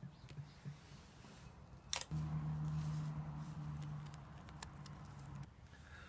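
Faint clicks of hands working wires against a plastic doorbell mounting plate, then a sharp click about two seconds in. A steady low hum follows for about three and a half seconds and cuts off suddenly.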